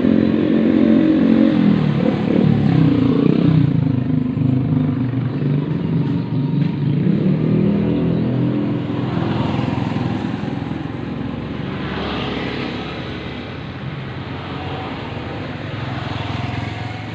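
Small petrol engine of a motorised bicycle running, its pitch rising and falling with the throttle. It is loudest in the first few seconds and grows gradually fainter toward the end.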